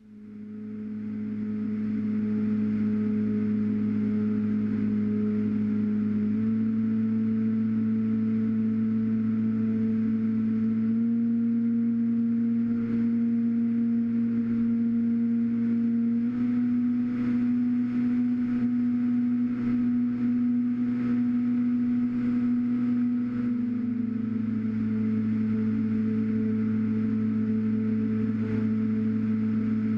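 Skyhunter FPV plane's electric motor and pusher propeller running, a steady hum that fades in at the start. Its pitch steps up three times as the throttle is raised, then drops back about three quarters of the way through.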